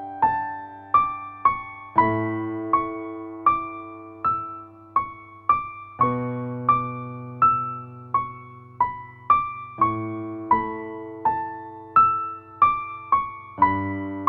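Background music on piano: a steady run of single struck notes, each fading away, about two a second over lower bass notes that change every couple of seconds.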